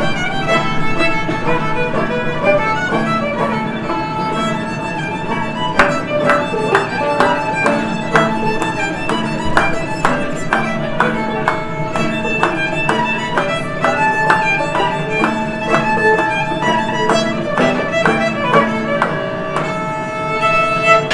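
Fiddle and banjo playing a tune together live, the fiddle holding bowed melody notes. From about six seconds in, a steady beat of sharp picked banjo notes comes forward.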